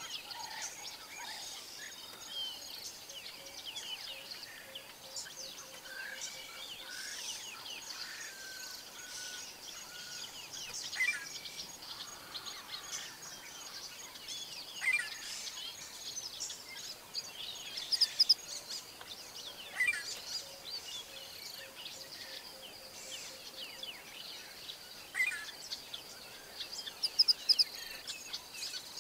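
Wild birds chirping and singing, with short louder calls every few seconds, over a steady high-pitched hum.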